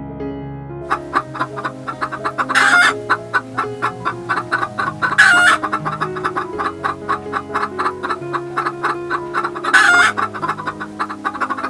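Birds clucking rapidly, with three loud squawks spread through, over soft piano background music.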